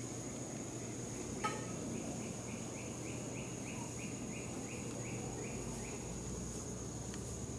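Insects buzzing in the forest: a steady high-pitched drone, joined from about two seconds in by a rhythmic chirping of about three short rising notes a second that stops about two seconds before the end. A single sharp click comes about a second and a half in. The howler monkey is not calling.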